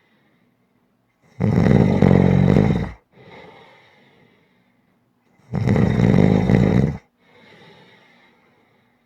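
A person snoring loudly: two long snores about four seconds apart, each followed by a softer, shorter breath.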